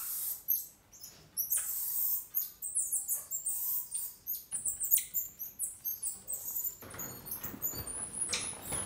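Emperor tamarins calling: many rapid, very high-pitched chirps and squeaks, overlapping one another. A rustling noise joins near the end.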